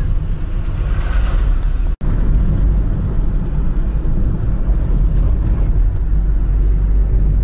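Steady low rumble of road and engine noise inside a moving car, with a momentary break about two seconds in.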